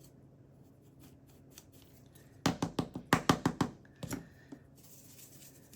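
A quick run of small sharp clicks and scrapes, about a dozen in a second, as a pointed tool works inside the hub hole of a dusty laptop CPU fan, with a few more clicks after.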